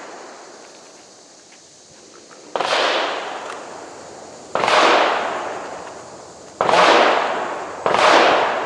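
Four handgun shots, about two seconds apart with the last two closer together. Each shot cracks sharply and fades in a long echo.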